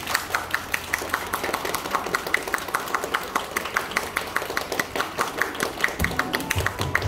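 Small audience applauding at the end of a song, with distinct hand claps several a second. A low beat comes in about six seconds in.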